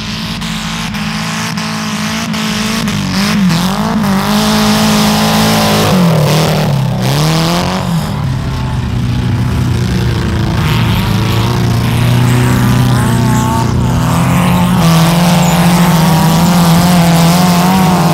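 Several wreck-race cars running hard together on a dirt track, their engines revving. The pitch drops and climbs again a few times as they lift off and accelerate.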